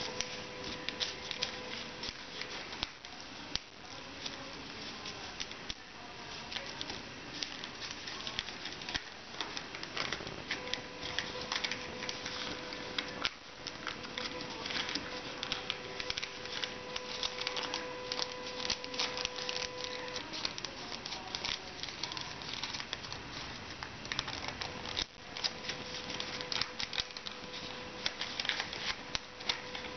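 Origami paper being folded and creased by hand: continuous rustling and crinkling with many small crackles.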